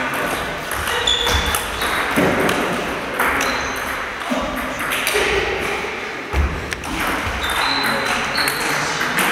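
Table tennis rally: the ball clicking off bats and table in quick succession, with short high squeaks of sports shoes on the wooden hall floor.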